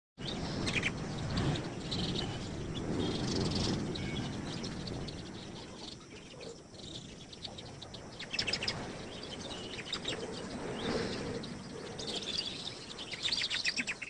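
Baya weavers chirping, with runs of fast repeated chirps about halfway through and again near the end, over a low background rumble that is strongest in the first few seconds.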